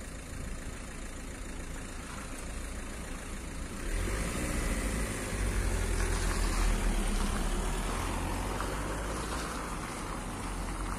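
Cars pulling away and driving across a level crossing close by, engine and tyre noise rising about four seconds in as the first car passes, then a second car following.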